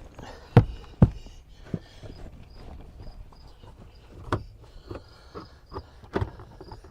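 Scattered knocks and thumps of car interior parts being handled and fitted, the loudest about half a second and a second in, then again around four and six seconds. A faint high chirp repeats about two or three times a second in the background.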